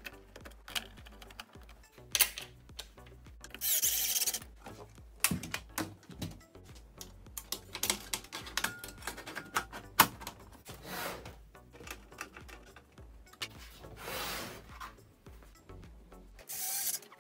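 Sheet-metal case of a Technics SU-Z15 amplifier being worked on with screwdrivers: a string of sharp metallic clicks and knocks, and four short noisy bursts as screws come out and the top cover is lifted off.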